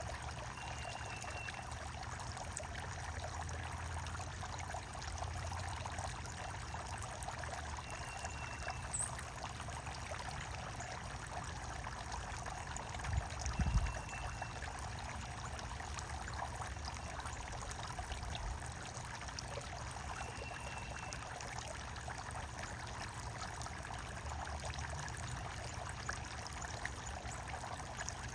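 Running water trickling and splashing steadily, with four short, faint bird notes spaced several seconds apart and a single low thump about halfway through.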